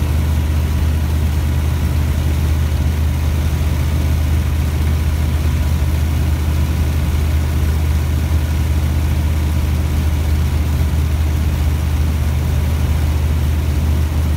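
Rotax 912 flat-four engine and propeller of a Best Off Skyranger Swift ultralight, heard from inside the cockpit in flight. It gives a steady, loud drone that does not change in pitch or level.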